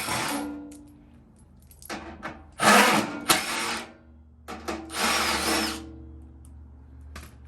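Cordless drill/driver running in three short bursts, spinning out the screws that hold the blower motor to its mount.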